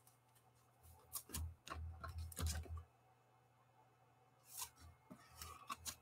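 Faint clicks, taps and rustles of trading cards and plastic card holders being handled and shuffled, in two short bursts with quiet between.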